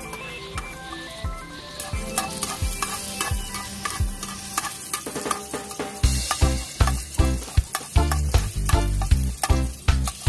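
A utensil clicking and scraping against a pot as food is stirred, with a sizzle underneath. Background music plays throughout, and a heavy bass beat comes in about six seconds in.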